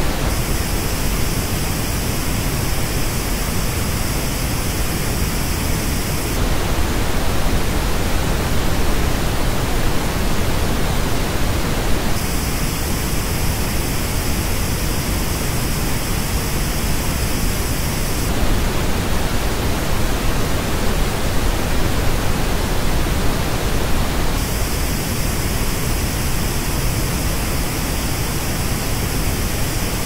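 Steady pink-noise test signal that alternates about every six seconds between the flat original and the same noise as reproduced by Superlux HD681 headphones. The headphone version has a dip in the upper range and an uneven, jagged treble. The headphone version plays for the first six seconds, again around the middle and again near the end, with the flat original in between.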